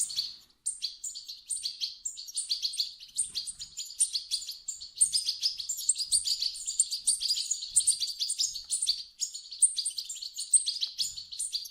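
European goldfinch chicks calling: a dense, rapid, high-pitched twittering chatter with only brief breaks.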